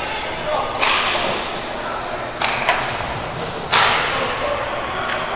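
Hockey sticks and puck striking on an inline hockey rink: about four sharp cracks, the loudest near the start and past halfway, each ringing on briefly in a large hall.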